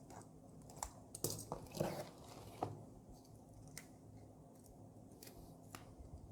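Faint handling of packaging: scattered light clicks and short rustles of plastic and cardboard as a small packed item is taken out and unwrapped.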